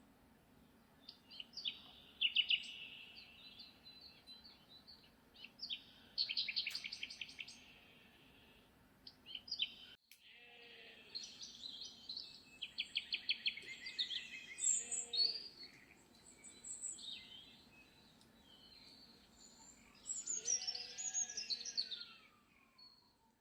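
Several songbirds chirping and trilling in quick phrases, with a short break about ten seconds in; near the end one call slides steadily down in pitch. A faint steady low hum lies underneath.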